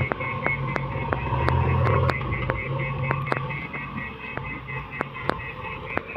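Excavator's diesel engine running, its low drone swelling and easing in stretches of about a second as it works, with many short sharp clicks and knocks scattered throughout.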